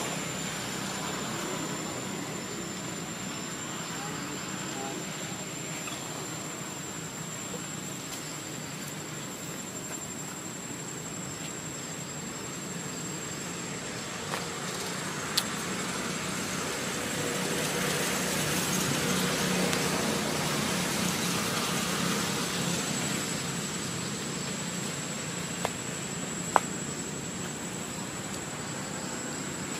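Steady outdoor background noise with a high, steady whine throughout. The hiss swells for several seconds past the middle, and a few sharp clicks stand out, two of them near the end.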